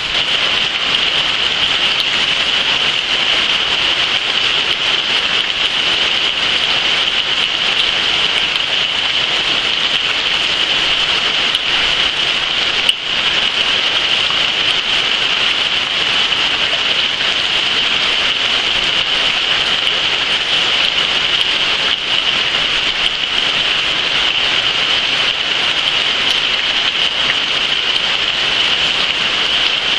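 Rain falling steadily, a loud, even hiss that does not let up, with one short click about thirteen seconds in.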